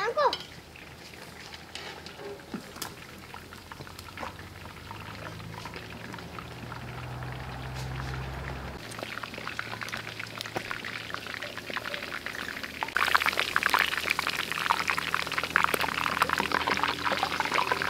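Beef chops deep-frying in a large black wok of hot oil, the oil sizzling and crackling steadily; the sizzle gets much louder about 13 seconds in.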